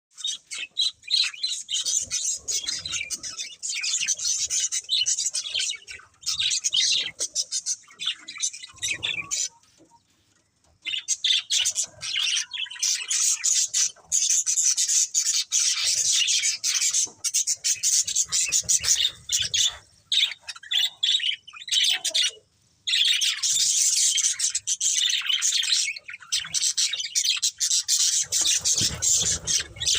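A pair of budgerigars chirping and chattering: rapid high twittering with harsher squawks, broken by two short pauses.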